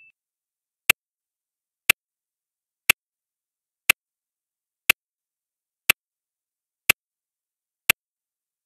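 Clock ticking, one sharp tick a second, eight ticks in all.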